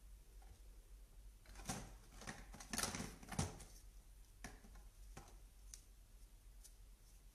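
Plastic parts of a hot-air brush styler kit being handled: a run of clicks and knocks from about one and a half to three and a half seconds in, then a few single lighter clicks. The styler is not running.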